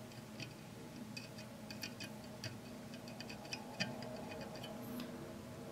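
Faint, irregular small clicks and ticks from a soldering iron tip working along the fine-pitch pins of an STM32 chip, clearing solder bridges between the pins.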